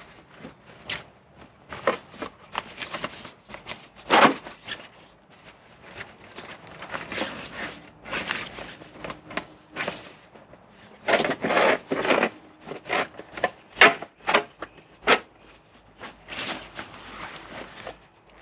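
A stiff inner wall panel being pushed and worked into a soft bag: irregular rustling, scraping and crackling of the panel and bag fabric, with sharp clicks. The handling is busiest about 4 seconds in and again from about 11 to 15 seconds.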